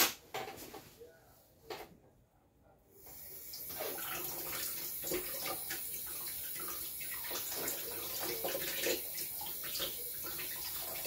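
A sharp knock right at the start, then a tap turned on about three seconds in and running steadily as the cat fountain's charcoal filter is rinsed under cold water.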